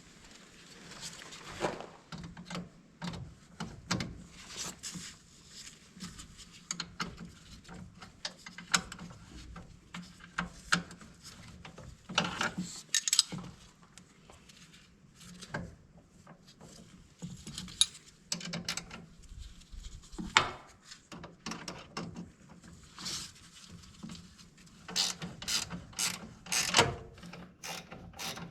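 Hand ratchet wrench clicking in irregular runs as bolts are worked, with a few louder metal knocks among the clicks.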